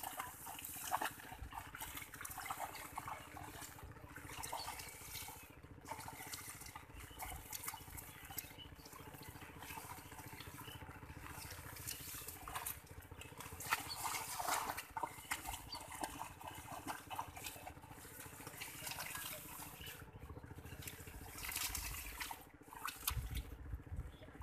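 Hands splashing and sloshing in shallow muddy water and pulling through wet water weeds, as small irregular splashes and rustles.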